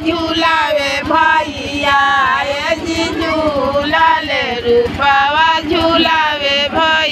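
High female singing of an ornamented, wavering melody, with a fast steady low beat underneath.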